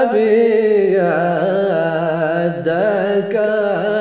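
A man singing a traditional Yemeni tawshih (devotional chant), holding one long melismatic phrase with a wavering, ornamented pitch.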